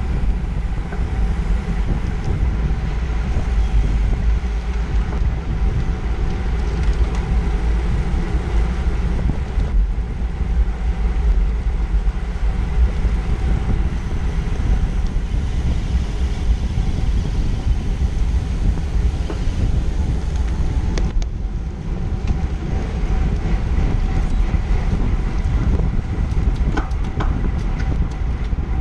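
Steady wind rumble on the microphone of a bike-mounted camera at racing speed, mixed with the tyre and drivetrain noise of road bikes riding in a tight group. A few short clicks sound near the end.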